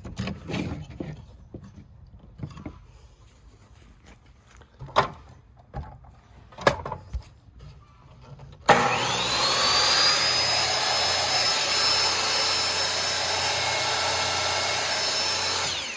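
A few scattered knocks and clicks of the miter saw being handled, then about halfway through the Hart miter saw's motor switches on with a whine that rises quickly to a steady high pitch and runs for about seven seconds. Near the end it is switched off and the pitch falls as the blade winds down.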